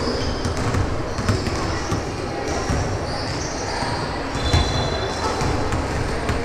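A basketball being dribbled on a gym floor, with short high sneaker squeaks scattered through it.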